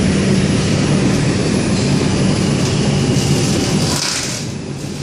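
An R142 subway car running on the track, heard from inside the car: a steady rumble and rattle with a low hum underneath. The noise eases off near the end.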